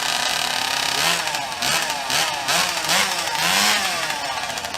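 Gas chainsaw running, then revved up and down over and over from about a second in, its pitch rising and falling roughly twice a second: the saw being warmed up before a cut.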